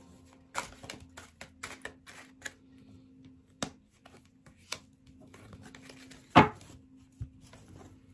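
Tarot deck being shuffled by hand: a run of short, crisp clicks and snaps of the cards, with one much louder thump about six seconds in.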